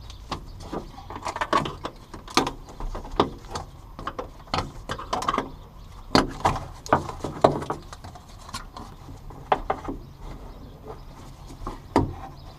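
Irregular clicks, taps and scrapes of gloved hands handling a car's sheet-metal fuel pump access cover and its plastic wiring connector on the floor pan.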